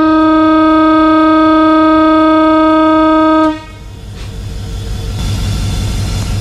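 Diesel locomotive air horn sounding one long, loud, steady blast of about three and a half seconds, heard from inside the cab. After it the locomotive's diesel engine idles with a low steady rumble.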